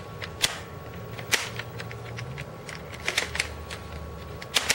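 Sharp plastic clicks and snaps from a handheld Lego rubber-band shotgun's hammers and bricks being worked by hand. The clicks come at irregular moments: the loudest is about a second and a half in, a quick cluster follows a little after three seconds, and two come close together near the end.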